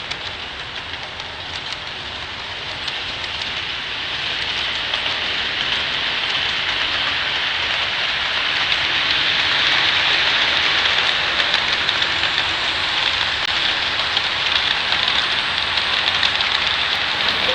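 Steady rushing noise of a train running, with no horn, growing slowly louder.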